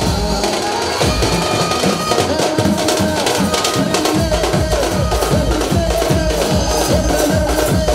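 Indian wedding brass band playing: large bass drums and a side drum beat a steady, fast rhythm, with a clarinet carrying the melody. The drumming grows heavier about halfway through.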